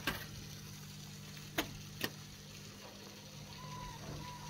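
A few sharp, light clicks from a coin-operated beer vending machine as coins are fed in and its controls are worked. Near the end a faint steady tone starts as the beer selection is pressed.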